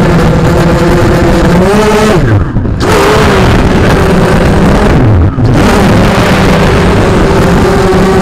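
FPV drone's brushless motors and propellers whining steadily, heard close up through the onboard camera's microphone. Twice, about two and a half and five seconds in, the pitch drops sharply and comes straight back as the throttle is cut and reapplied.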